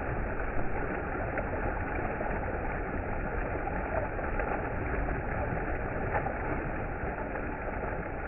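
Shallow river water rushing steadily over a riffle, with a low rumble under it.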